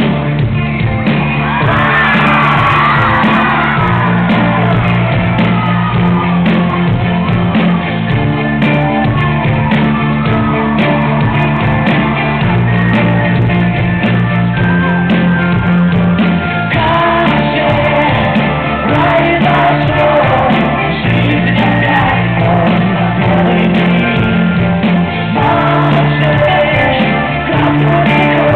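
Rock band playing a song live with electric guitar, bass guitar, drums and keyboard, and a male lead vocal singing over it.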